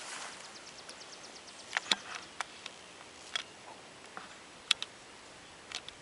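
Scattered sharp snaps and crackles of tall grass stems and twigs underfoot as a cat and a person walk through the grass, with a short run of faint rapid ticking about a second in.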